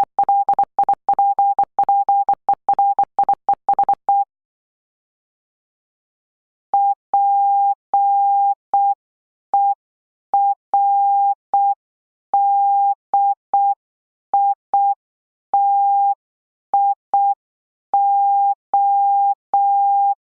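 Morse code practice tone, a steady pitch of about 800 Hz keyed into dots and dashes. For about four seconds it sends a quick run of code, then falls silent for about two and a half seconds, then sends more code at a slower pace with longer dashes and wider gaps.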